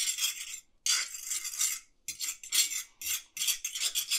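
Metal fork scraping back and forth across the bottom of a preheated Lodge cast iron skillet, spreading a drop of oil. It makes a run of short scraping strokes, about two to three a second.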